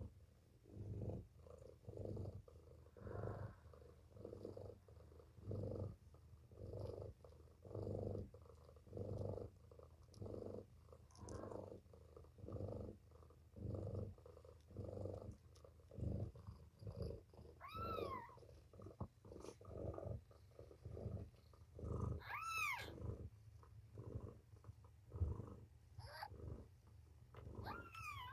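Nursing mother cat purring, the purr swelling and fading about once a second with her breathing. Three short, high, rising-and-falling mews from a newborn kitten cut in, the first about two-thirds of the way through and the last near the end.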